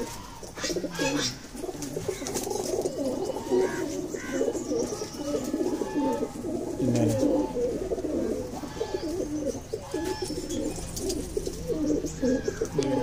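A flock of domestic pigeons cooing steadily, many low coos overlapping one another.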